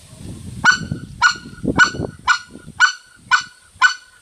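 A short-reed white-fronted goose call blown in a row of seven sharp, short clucks, about two a second, starting just under a second in. Each cluck is a high note that breaks off abruptly: the single 'clack' note of the white-fronted goose's cackle, made by the tongue pushing a small puff of air into the call.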